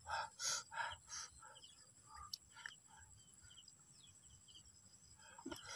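A person chewing grilled snail, with smacking mouth sounds about three a second that fade out after about a second, leaving near silence broken by a few faint ticks.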